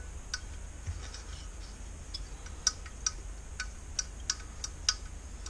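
Small sharp metal clicks, irregular at roughly two a second, as the valves of a dismantled Honda GX35 four-stroke engine are worked by hand and snap back onto their seats. The valves appear to be working.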